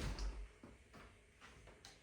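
A soft, low thump with a brief rustle, then a few light clicks.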